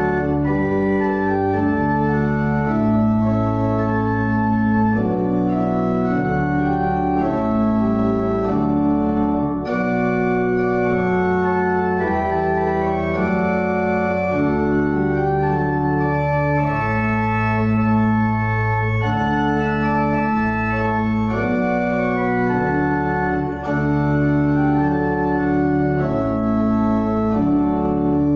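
Church pipe organ playing a slow piece of sustained chords over a stepping bass line, with brief breaks between phrases about ten and about twenty-four seconds in.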